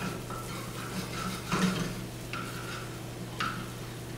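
A metal spoon scraping and knocking in a sauté pan as chopped herbs are stirred in olive oil: several short scrapes and clinks, the loudest about one and a half seconds in, over a steady low hum.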